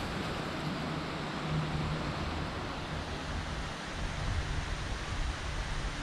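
Steady rushing of a stream flowing through a wooded valley, with an uneven low rumble underneath.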